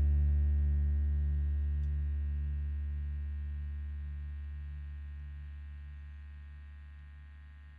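The closing drone of a guitar-band rock track: one low held note with its overtones and a slow pulsing waver, fading steadily away.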